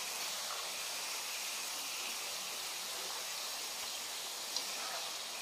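Potato strips deep-frying in hot oil in a pan: a steady sizzle, with one brief tap about four and a half seconds in.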